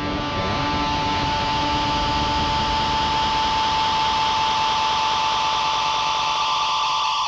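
A steady, loud hissing drone with a sustained high whine and fainter tones above and below it. It starts abruptly, its tones sweeping upward for a moment before settling.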